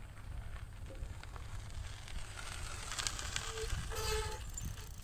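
Folding bicycle riding past on a gravel path, with faint tyre crunches and clicks about three to four seconds in, over a steady low rumble of wind on the microphone.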